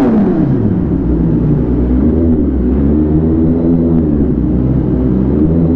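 Motorcycle engine running at low revs in slow traffic, its pitch rising and falling slightly with the throttle. In the first second another vehicle passes, its pitch dropping away as it goes by.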